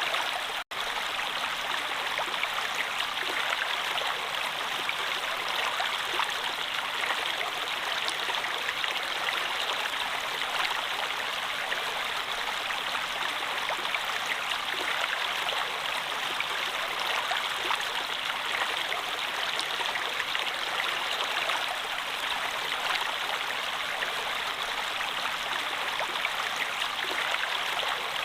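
Flowing water running steadily, a continuous even rush like a stream. A split-second gap cuts it out just under a second in.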